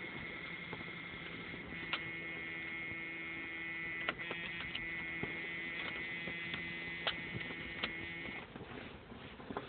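A steady electrical hum from the pickup truck's electrics, with the key on and the battery dead, and a few sharp clicks over it. The hum cuts off near the end.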